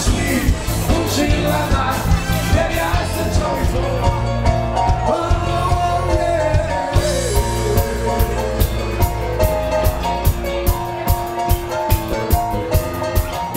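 Live band music: a keyboard carries a melodic line over a steady drum-kit beat, with a vocal line at times.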